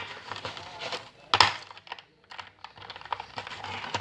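Packaging being handled as tightly packed earphones are worked out of their box insert: scattered light clicks and rustles, with one sharp snap about a second and a half in.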